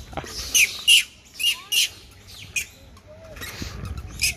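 Monkeys crunching dry chickpeas, a run of short, sharp crackles about two a second with a pause around the middle.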